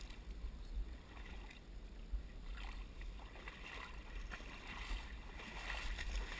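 Shallow pond water sloshing and tall grass brushing against the camera as its wearer wades out of the water and pushes up the bank, with a few faint splashes and rustles. A steady low rumble on the microphone runs underneath.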